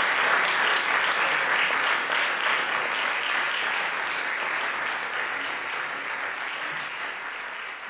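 Audience applauding, the applause fading away gradually through the last few seconds.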